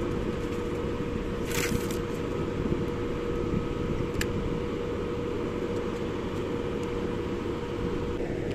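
Steady low rumble of churning water and wind, with a constant machine hum beneath it; two short clicks about a second and a half and four seconds in.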